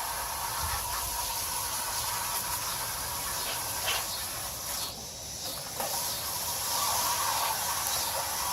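Garden hose spraying water through an air-conditioning condenser coil, a steady hiss that briefly drops away about five seconds in, flushing packed cottonwood out of the fins.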